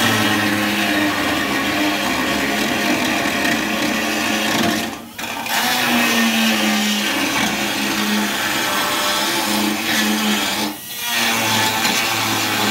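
Handheld pneumatic tool running at high speed against sheet steel, its whine wavering in pitch as it loads up. It stops briefly twice, about five and eleven seconds in.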